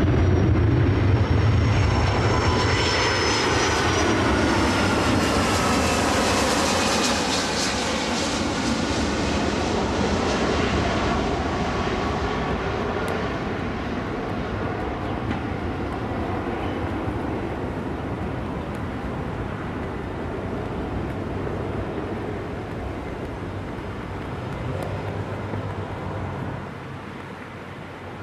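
Boeing 757 jet airliner on landing approach passing low overhead: a loud jet roar with engine whine tones falling in pitch as it goes by, then a steady roar fading slowly as it moves away toward the runway.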